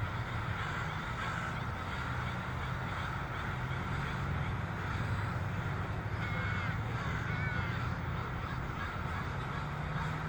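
A large flock of crows cawing together in a dense, unbroken chorus, with a few nearer caws standing out about two-thirds of the way through. A steady low rumble runs underneath.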